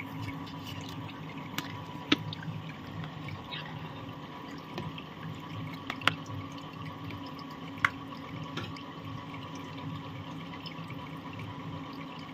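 A steel spoon knocks sharply against a stainless steel plate three times, about 2, 6 and 8 seconds in, while chutney is served beside dosas. Underneath runs a steady background hiss and low hum.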